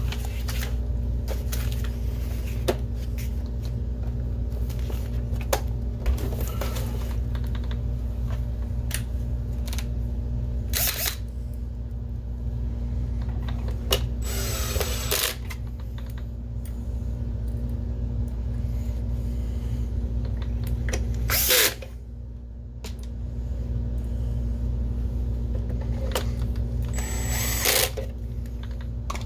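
Cordless drill/driver driving screws into a projector's plastic bottom case in several short runs, each about a second long and the longest near the middle, whirring up and down in pitch. A steady low hum runs underneath.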